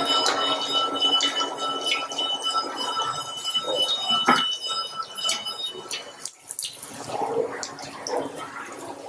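Mullu murungai leaf vadai batter deep-frying in hot oil in a steel kadai: steady sizzling and crackling. A sharp clink of the slotted ladle about four seconds in, and the sizzling grows quieter in the second half.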